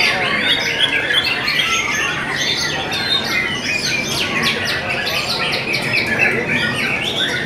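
White-rumped shamas (murai batu) singing, several caged birds at once in dense overlapping song, with a fast run of rapid repeated notes about halfway through.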